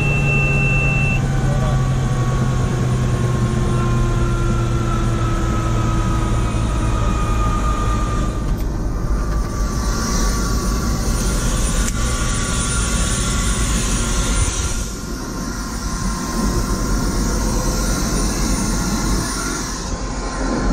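Helicopter engine and rotor noise heard inside the cabin: a steady loud drone with a strong low hum and a few faint tones that slowly fall in pitch.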